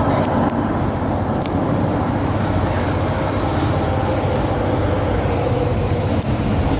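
Steady rumble and running noise of a first-generation MTR M-Train (1979 CM Stock) heard from on board, with a faint steady tone and a few light ticks in the first second and a half.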